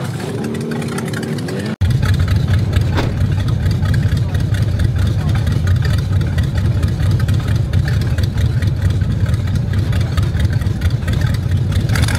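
Buick 6.6-litre Nailhead V8 of a 1930 Ford Model A hot rod, idling loud and deep. It comes in abruptly about two seconds in, after a moment of crowd chatter.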